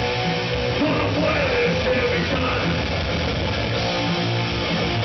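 Rock band playing live: electric guitar, bass and drums, loud and continuous.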